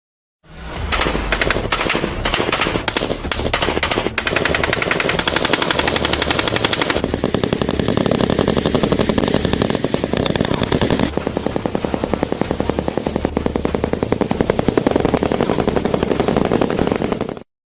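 Type 95 squad automatic weapons firing long, rapid runs of automatic fire, with shots coming too fast to count. The sound shifts abruptly about 4, 7 and 11 seconds in, as from one firing clip to the next.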